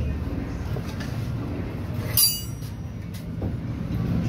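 One short, high-pitched metallic ring about two seconds in, metal striking metal at the flywheel and its bolts, over a steady low rumble.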